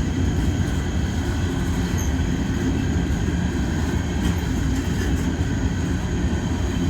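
Empty coal train's cars rolling past, with a steady low rumble of wheels on rail.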